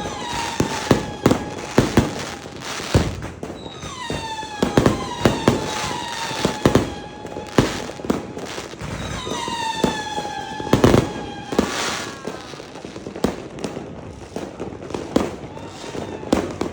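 A 100-shot fireworks cake firing, with irregular sharp bangs and pops. Long whistles fall slowly in pitch, starting at the beginning, about four seconds in, and about ten seconds in.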